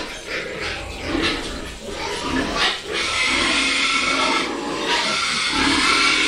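Pigs, including a pen of piglets, squealing and grunting: many overlapping calls with no pause.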